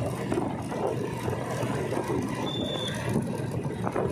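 Motorcycle on the move: engine running under a steady rush of wind and road noise, with a short high beep about two and a half seconds in.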